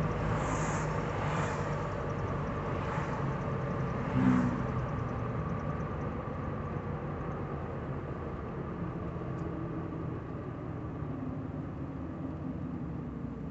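Cabin sound of a 1985 Cadillac Cimarron driving: steady engine and road noise, with a few passing whooshes in the first four seconds and a brief louder sound about four seconds in. The noise eases a little in the second half.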